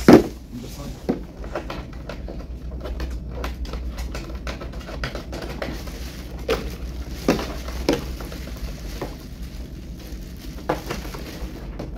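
Hard plastic parts of a toddler slide being handled and fitted together: scattered knocks and clatter, the loudest right at the start, over the light rustle of a plastic parts bag. A steady low hum runs underneath.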